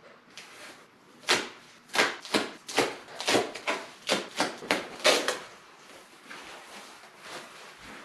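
Plastic packaging crinkling and rustling as a car shifter assembly is pulled out of its wrapping: about a dozen sharp crinkles between about one and five seconds in, then quieter handling.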